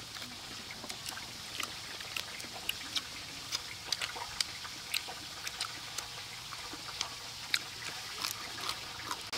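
Eating sounds close to the microphone: irregular sharp clicks and smacks of chewing and tearing fried chicken by hand, about two or three a second, over a faint steady hiss.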